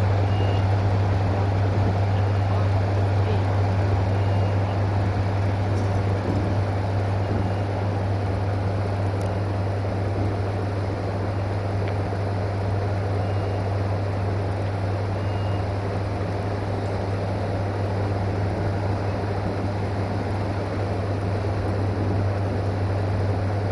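A railway locomotive running steadily nearby: a constant low hum over even mechanical noise that neither builds nor fades.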